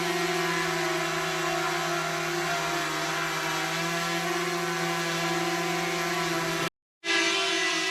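DJI camera drone's propellers whirring at a steady pitch, a whine of several tones layered over a high hiss. Near the end it cuts out for a split second, then resumes.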